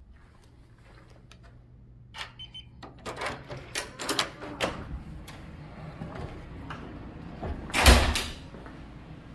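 Electronic keycard lock on a hotel room door beeping briefly about two seconds in, then the handle and latch clicking and rattling as the door is opened. A loud thud comes near the end.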